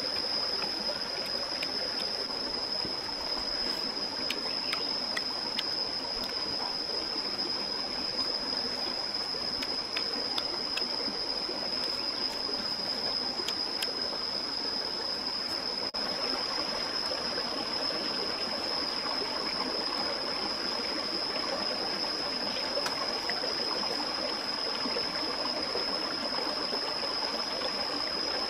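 Steady rush and trickle of a stream, with a constant high-pitched whine over it.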